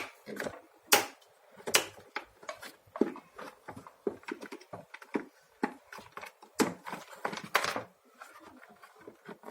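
Irregular clicks, knocks and short scrapes of vacuum cleaner parts being handled as the motor is worked loose and lifted out of the housing. The loudest knocks come about a second in and again near the end.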